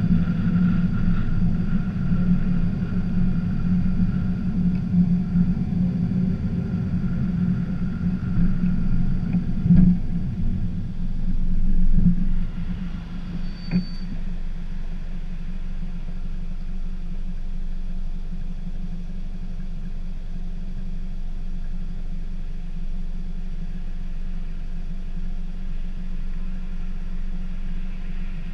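Scion tC four-cylinder engine and road noise while driving, settling a little past the middle into a steady, quieter idle as the car sits stopped. A couple of brief knocks come around the point where it stops.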